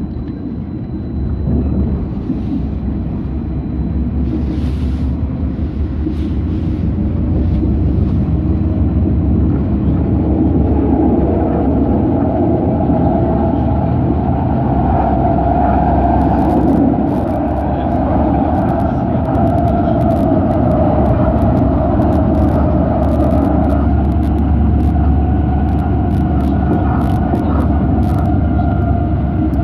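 A tram running on its rails, heard from inside the car: a steady low rumble that grows louder over the first several seconds as it pulls away and gathers speed. A steady whine joins it about ten seconds in. From about halfway there are scattered sharp clicks.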